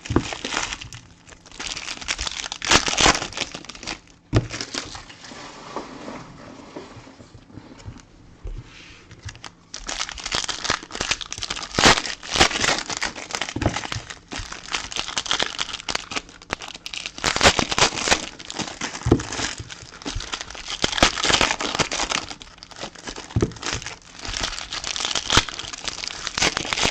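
Trading card pack wrappers crinkling and tearing as packs are opened, in irregular crackly bursts, quieter for a few seconds near the first third.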